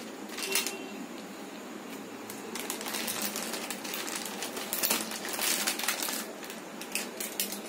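Kitchen handling noises: scattered light clicks and knocks, with a longer stretch of rustling a little past the middle, as things are moved about on the counter.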